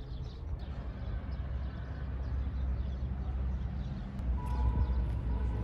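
Outdoor town ambience: a steady low rumble with faint, short high chirps, and a brief steady tone about four and a half seconds in.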